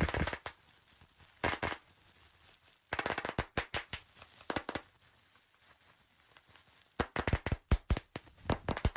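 Bursts of sharp cracking and snapping: brittle objects crushed under a car's tyre. The crunches come in clusters, the longest run near the end.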